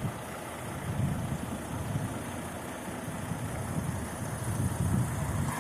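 Low rumble of motor vehicles, swelling and fading several times.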